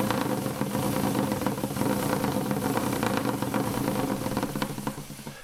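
Honda Africa Twin's parallel-twin engine running steadily at idle, turning the drive chain, then stopping near the end.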